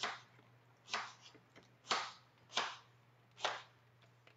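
Kitchen knife cutting ginger on a cutting board: five sharp chops, roughly one a second.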